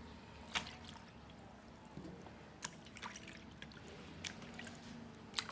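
Wet kitchen handling sounds: scattered light clicks and drips of water as raw shrimp and ingredients are handled, about six sharp clicks spread through the few seconds.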